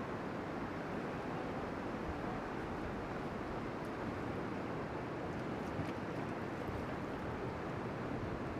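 Steady rushing of whitewater rapids on a river, an even roar of moving water.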